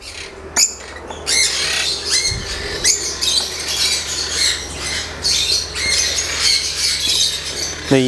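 Lovebirds in a flight cage chattering, with many short shrill squawks and chirps overlapping.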